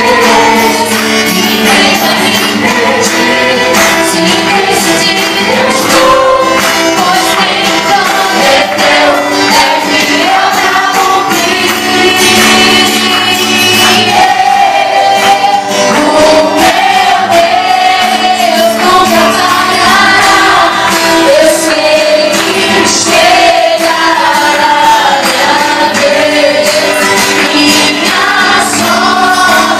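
Gospel worship song: voices singing a melody over band accompaniment with a steady beat.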